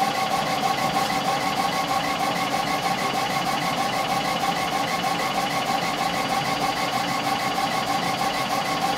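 Epilog Fusion CO2 laser engraver raster-engraving glass, its laser head shuttling rapidly side to side. The machine gives a steady mechanical hum with a high whine and no break.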